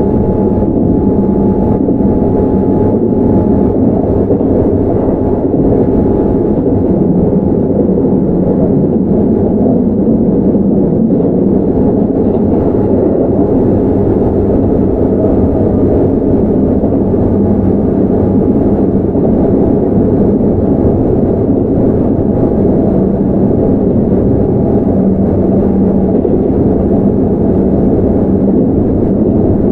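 Keihan 9000 series electric train (Toyo GTO-VVVF equipment) running steadily between stations, heard from inside the car: a constant rumble of wheels on rails and running gear with no braking or stop.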